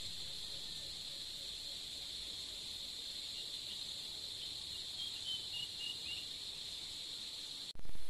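Steady high-pitched insect chorus, with a few short chirps a little past halfway. A brief loud burst of noise comes right at the end.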